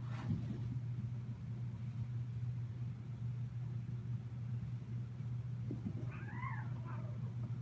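A cat meows once about six seconds in, a call of about a second that rises and then falls in pitch, over a steady low hum.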